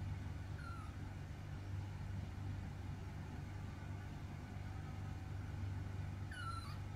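A baby monkey gives two short, high squeaks that fall in pitch, a faint one about half a second in and a louder one near the end, over a steady low hum.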